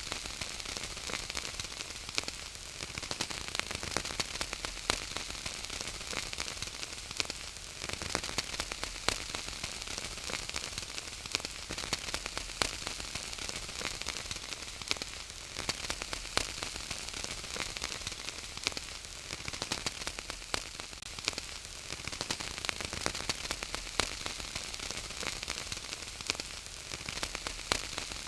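Wood fire crackling steadily: a close, dense run of small pops and snaps over a soft hiss.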